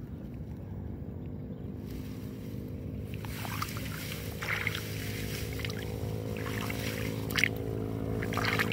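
Wet grass rustling and water splashing at the edge of a flooded field as a hand pulls in a hooked snakehead fish, with irregular splashes from about three seconds in, the loudest one near the end. A steady low hum runs underneath.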